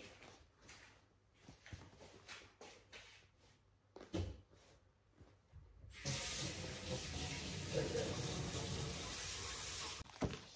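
Fingers picking and scratching at the sealed edge of a cardboard drone box, in light scattered clicks. About six seconds in, a steady rushing hiss starts suddenly, runs for about four seconds and cuts off.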